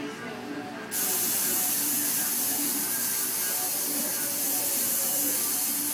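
A steady, loud hiss that starts abruptly about a second in and holds even.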